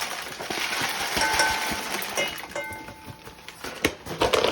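Dry sticky rice being scooped and poured into a rice cooker pot, a rustling hiss of grains, with two short ringing clinks of the measuring cup against the pot, about a second and two seconds in.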